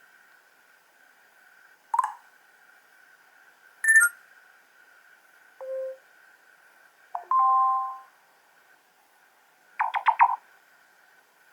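Short built-in phone tones on a ZTE Blade G Lux V830 played one after another: five brief beeps and chimes about two seconds apart, including a two-note tone and a quick cluster of pips near the end, over a faint steady whine.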